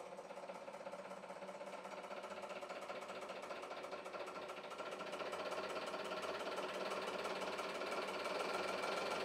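Hydraulic press pump running with a fast, even pulsing, growing gradually louder as it builds tension load on a steel connecting rod.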